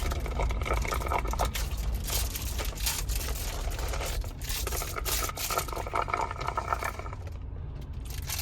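Rustling and scraping noises over a steady low rumble, quieter near the end.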